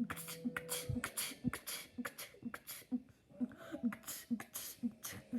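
A boy beatboxing a techno bass beat with his mouth. A held low bass tone runs through the first second, then a steady pulse of about two beats a second with sharp hissing hi-hat strokes.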